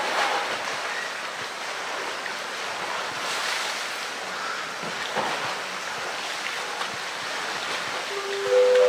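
Pool water splashing and sloshing as a polar bear wrestles a floating plastic barrel through it, with a few louder splashes. Near the end, several steady musical tones begin.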